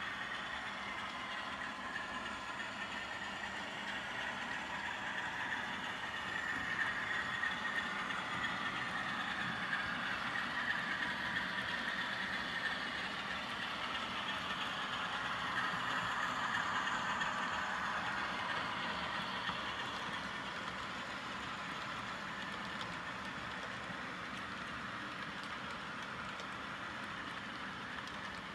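Model Class 47 diesel locomotive hauling a container train on a model railway, running steadily. The sound swells in the middle as the wagons pass and eases off near the end.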